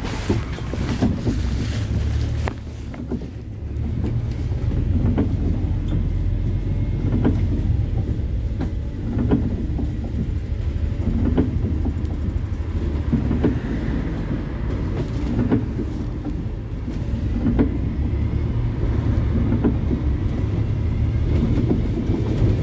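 City bus engine and road rumble heard from inside a moving bus, a steady low drone with frequent short rattles and knocks from the body, easing briefly a few seconds in.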